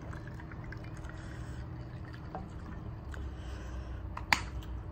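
Quiet sipping and swallowing of water from a mug over a low steady hum, with one sharp click a little past four seconds in.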